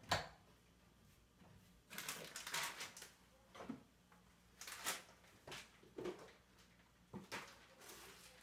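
Rummaging in kitchen cupboards: scattered knocks and clatters of household items being moved and set down, with a longer spell of clattering about two seconds in.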